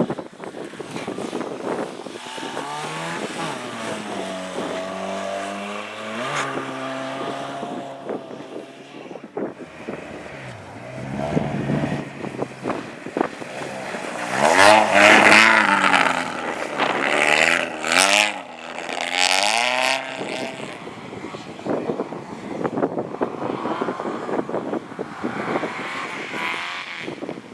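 Cars driven hard around a race track, engines revving up and dropping back through gear changes. The loudest stretch comes about halfway through, as cars pass close by.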